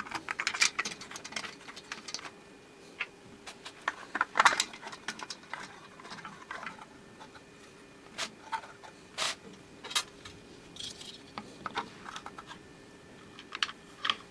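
Irregular clicks, taps and light rattles of small hard plastic parts and hardware being handled and fitted together by hand, in short clusters with quiet gaps between.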